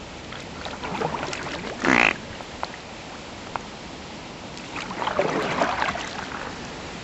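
Kayak paddle strokes splashing in the canal water, in two bouts, around one second in and again after five seconds. About two seconds in comes a single short, loud, grating sound.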